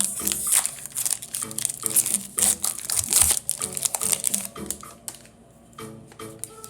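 Foil Pokémon booster pack wrapper crinkling and tearing as it is opened, loudest in the first three seconds or so, over background music.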